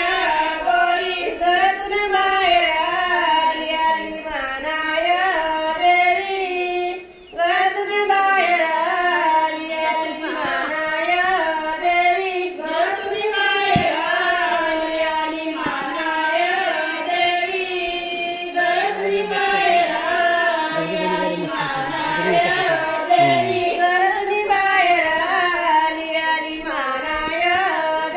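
Women singing a traditional Konkan grinding song in long, wavering phrases, with a brief break about seven seconds in.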